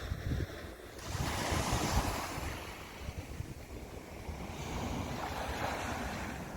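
Sea waves breaking and washing up the beach: one surge swells about a second in and another near the end. Wind buffets the microphone with a low rumble underneath.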